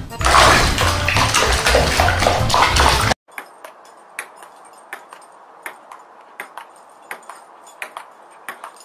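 Water splashing hard in a plastic basin as a live spiny lobster thrashes. After an abrupt cut about three seconds in, a run of sharp, light clicks at an irregular pace: a ping-pong ball bouncing on a table.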